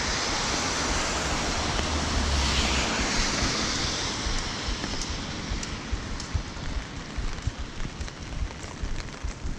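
Wind and heavy rain on the microphone, loud at first with a low rumbling gust, then easing after about five seconds into steadier rain with scattered sharp ticks of drops.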